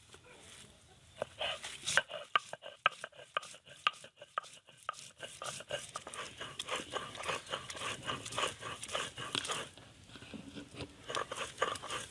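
Food being chopped with a knife: many quick, irregular strikes, starting about a second in.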